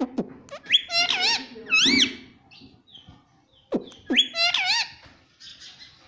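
Indian ringneck parakeet calling: two whistled phrases that bend up and down in pitch, one about a second in and another about four seconds in, with a few sharp clicks between them.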